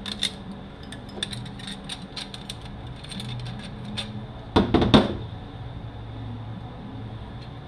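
Metal automatic-transmission parts being handled, with light scattered clicks and a louder clatter of knocks about four and a half seconds in, over a steady low hum.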